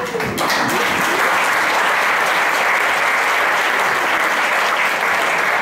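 Theatre audience applauding, a steady, dense patter of many hands clapping that swells in just after the start and holds evenly.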